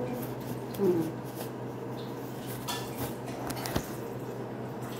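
Scattered clinks and knocks of dishes and kitchen utensils being handled, a few separate sharp taps over a steady low hum.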